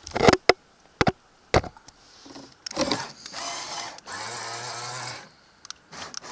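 A few sharp clicks and knocks, then a small electric motor whirring for about two seconds before it stops.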